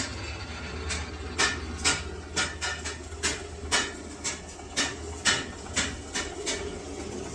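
A series of sharp knocks or taps, roughly two a second and unevenly spaced, over a steady low hum.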